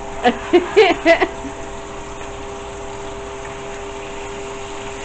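Hamburger patties frying in a pan, giving a steady sizzling hiss under a steady hum, after a second of brief talk.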